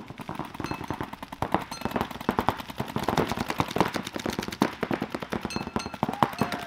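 Paintball markers firing fast strings of shots that overlap one another, a dense rattling crackle of paint being shot across the field.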